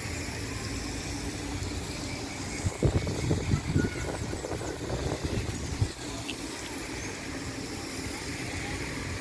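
Outdoor city-park ambience with a steady hum of distant traffic. For about three seconds in the middle, a run of loud low bumps rises over it.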